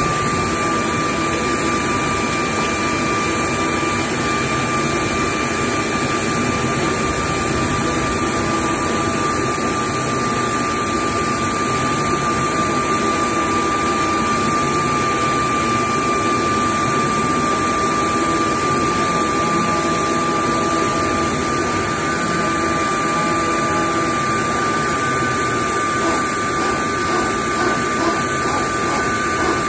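Steady jet-turbine whine and roar of aircraft machinery running, with a constant high whistling tone. A second, higher tone joins about two-thirds of the way through.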